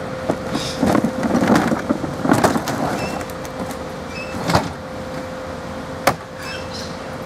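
Rear-loader garbage truck running at a standstill with a steady hum, while a wheelie bin is handled at its hopper: clattering and banging between about one and three seconds in, and sharp knocks of the bin against the truck's rear about four and a half and six seconds in.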